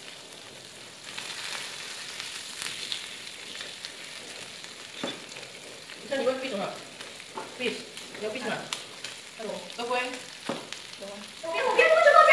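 Meat and seafood sizzling on an electric grill plate, with a few sharp clicks of chopsticks against the plate as the food is turned. Voices come in from about halfway, the loudest one near the end.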